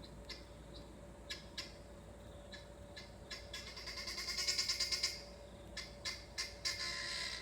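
Guinea fowl calling: scattered short, harsh single calls, then about halfway through a fast rattling series of calls, roughly ten a second, that grows louder before breaking off, followed by more single calls and another rapid run near the end.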